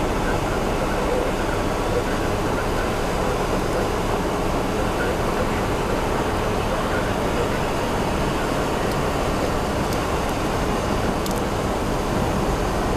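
Car driving on a rain-soaked highway, heard from inside the cabin: a steady rush of tyre and road noise on the wet pavement, with a few faint ticks about three-quarters of the way through.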